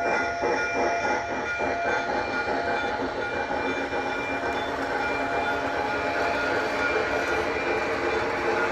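Model Mikado steam locomotive pulling away with its container cars. Its onboard sound system plays steam chuffing and a whistle tone over the running noise of the wheels on the track. The chuff strokes are plain in the first couple of seconds, then blend into a steady running sound.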